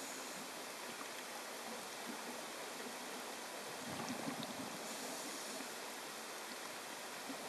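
Steady underwater hiss picked up by a diver's camera, with a short low burble about four seconds in.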